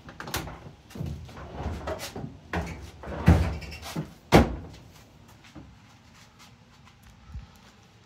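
Door of a Kenmore front-loading dryer being handled, opened and shut: a run of clunks and knocks, the loudest two a little over three and about four and a half seconds in.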